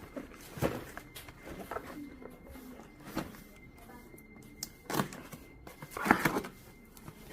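Cardboard fan box being handled and opened: scattered knocks and rustles, the loudest a couple of seconds before the end.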